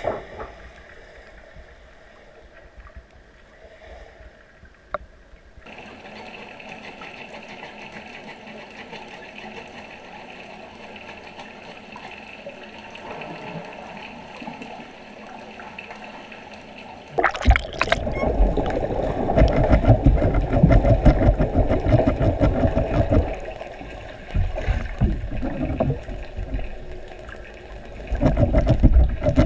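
Churning water and bubbling heard underwater. A faint steady wash comes first; about two-thirds of the way in, a much louder, crackling turbulence starts suddenly, fades, and returns twice.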